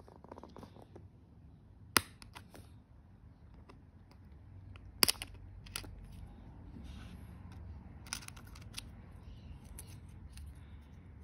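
Sharp plastic clicks as tweezers pry the command keycap off a MacBook Pro butterfly-mechanism keyboard: two loud snaps about three seconds apart, the second as the cap comes free of its clips, then a few fainter ticks.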